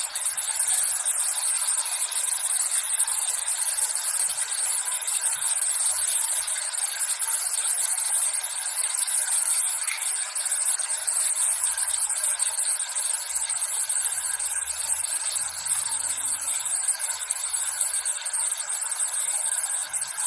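Steady rain falling, an even high hiss with no deep sound in it.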